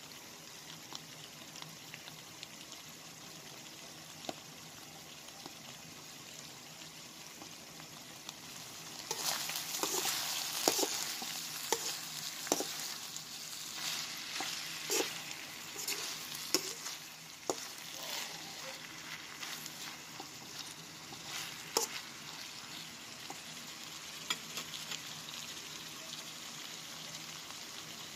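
Ground meat, sliced hotdogs and ham sizzling in a nonstick frying pan. About nine seconds in, a utensil starts stirring and scraping the mixture, with the sizzle louder and with sharp clicks against the pan, for about twelve seconds before it settles back to a steady sizzle.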